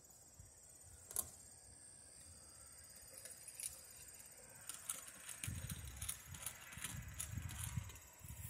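A steady high-pitched insect drone runs underneath, with a click about a second in and then scattered small clicks and taps as a screwdriver and the wires are worked inside an outdoor outlet box. A low rumble comes in from about five and a half seconds.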